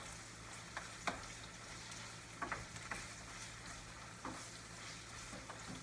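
Pork belly sizzling in a frying pan as a wooden spatula stirs it, with a few short scrapes and taps of the spatula against the pan.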